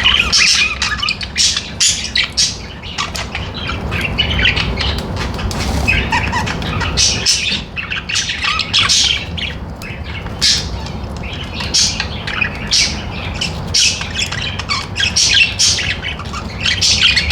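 Several pet budgerigars chattering: a dense run of short, overlapping high calls and warbles with hardly a pause, over a steady low rumble.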